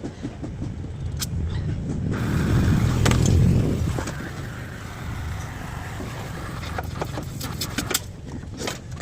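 A motor vehicle's engine rumble swells, loudest about three seconds in, then eases off, with scattered sharp clicks and knocks over it.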